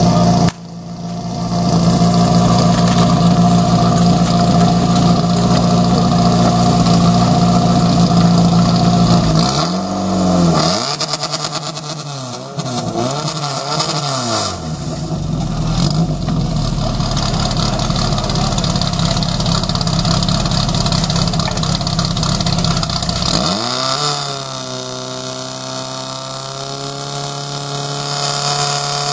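Portable fire pump engine running hard, with a steady note for the first several seconds. Its pitch then swings up and down repeatedly for several seconds. About two-thirds of the way through it dips and settles into a steady, higher note as the pump takes up water for the hose lines.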